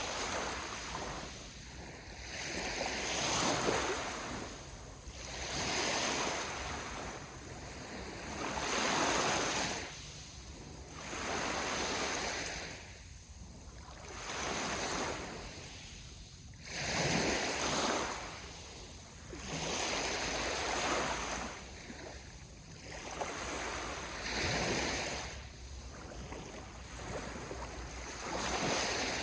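Sea waves washing onto the shore. Each surge swells and fades away, one every two to three seconds.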